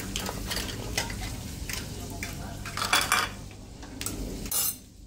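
Metal spoon clicking and scraping against a wire grill rack and oyster shells as a cooked oyster is lifted out, over the faint sizzle of oysters on an electric grill. The loudest scrape comes about three seconds in.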